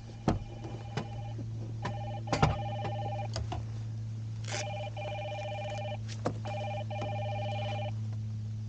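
Mobile phone ringing: a warbling electronic ringtone repeating in bursts about a second and a half long, with a few sharp clicks and a steady low hum underneath.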